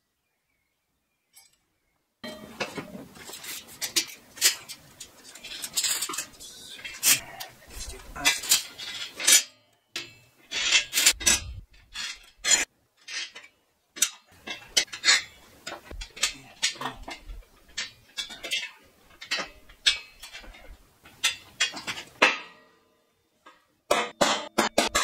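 Steel clinking and clattering: hooks and tools knocking against rebar and checker plate in irregular sharp clinks that ring briefly. Near the end comes a quick, even run of sharp taps.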